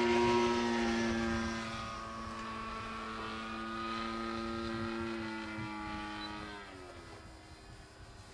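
Single-engine Zero fighter plane flying over, its piston engine and propeller giving a steady drone. The drone is loudest at first, drops in pitch about six and a half seconds in as the plane moves away, then fades.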